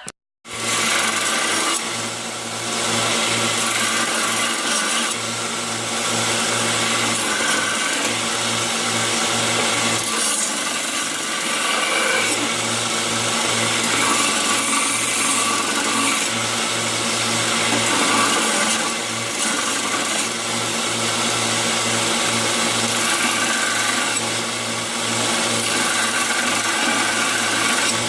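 An electric grinding tool running steadily and working steel: the hardened and tempered forged knife blades being cleaned up. Its hum rises and dips a little as the work is pressed on. It starts abruptly just after the beginning.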